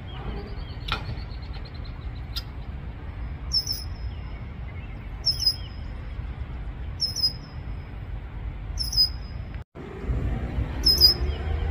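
Red-winged blackbird calling: a short, high call repeated five times, about every two seconds, over a steady low rumble.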